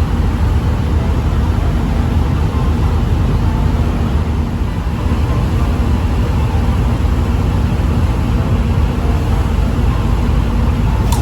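Steady low rumble of a ferry's engines while the ship is underway, with a single short click near the end.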